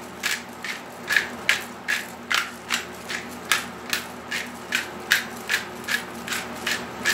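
Hand-twisted pepper grinder cracking black peppercorns: a steady run of short grinding strokes, about two and a half a second.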